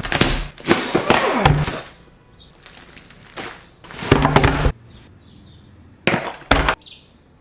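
Packaging being handled and opened: several loud bursts of rustling with knocks, the longest in the first two seconds, another around four seconds in, and two short sharp ones a little after six seconds.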